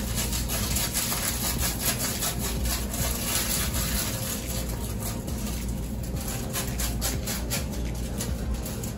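Continuous, irregular scraping and rubbing noise over a steady low hum.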